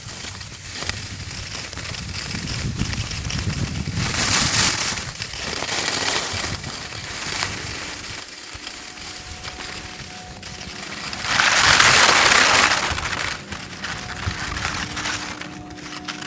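Skis scraping and hissing over hard-packed, crusty snow while skiing downhill, in uneven swells, loudest for a couple of seconds about eleven seconds in.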